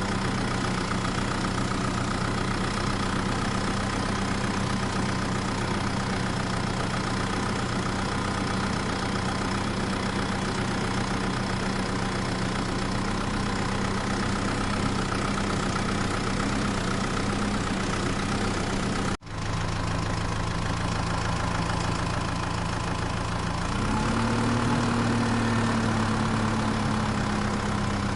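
Vehicle engine idling steadily, cutting out for a split second about two-thirds of the way through, then speeding up slightly near the end.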